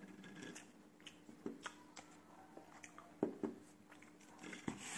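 Someone chewing a bagel sandwich with lettuce: soft, irregular crunchy mouth clicks, a little louder around the middle and near the end, over a faint steady hum.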